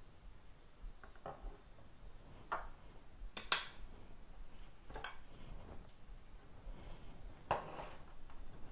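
A spoon clinking and knocking against ceramic dishes in a handful of separate short strikes, the loudest clink about three and a half seconds in, with a brief scrape near the end.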